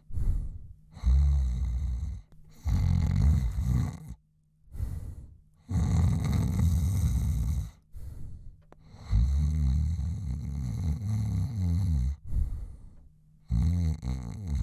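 A man snoring into a microphone: deep, low snores of one to three seconds each, coming one after another with short pauses between breaths.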